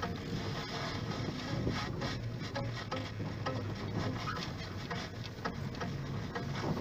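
Car moving slowly over snow and ice, heard from inside the cabin: tyres crunching and crackling with many small clicks over a low engine hum.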